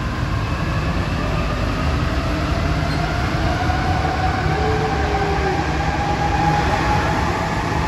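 Alstom NS-16 rubber-tyred metro train running between stations, heard from inside the passenger car: a steady rumble of the running gear with a faint whine that slowly rises in pitch.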